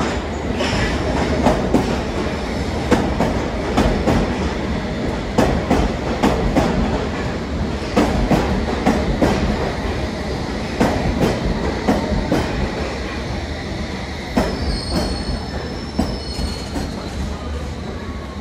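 London Underground S Stock train running into a station platform and slowing to a stop, its wheels clacking regularly over rail joints. Thin high brake squeals come in over the last few seconds as it comes to rest.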